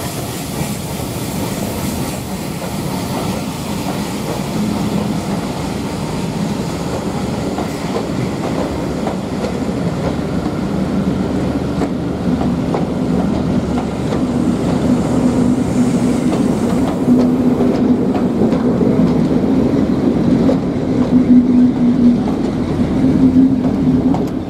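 Train of British Railways Mark 1 passenger coaches rolling slowly past, wheels clicking over the rail joints. A steady low hum builds through the second half and is loudest near the end as the rear of the train passes.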